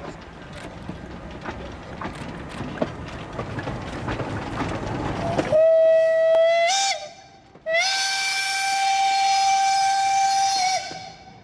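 Steam locomotive ΔΚ8.001 rolling past with a rising rumble and scattered clicks from the wheels on the rails, then its steam whistle blowing twice: a short blast that bends up in pitch as it ends, and a longer steady blast of about three seconds.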